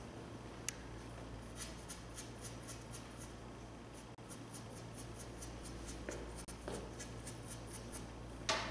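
Faint, rhythmic scraping of cue chalk being rubbed on a pool cue's tip, about five short strokes a second. There is a single sharp click about a second in and a louder knock near the end.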